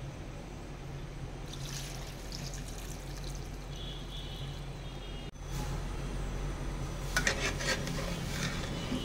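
Water poured from a glass jug into a pot of beef trotter broth, splashing into the liquid. Near the end come a few clinks of a metal spoon against the pot.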